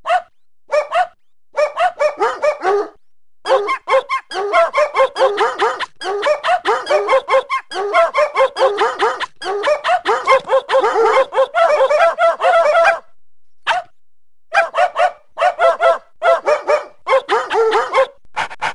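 Rapid, high-pitched animal yaps in long runs, several a second, broken by short pauses.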